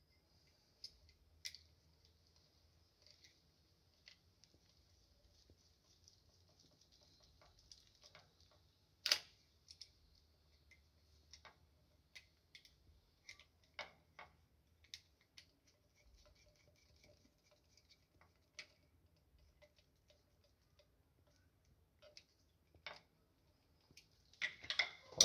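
Scattered faint clicks and scrapes of a screwdriver working the metal screw terminals of a new toggle light switch as it is wired in to replace a faulty switch, with one sharper click about nine seconds in.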